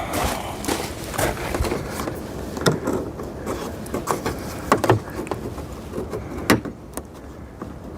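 Scattered light clicks and knocks of hands handling plastic push-in rivets and the plastic bug deflector against the truck's hood, with a few sharper clicks in the middle.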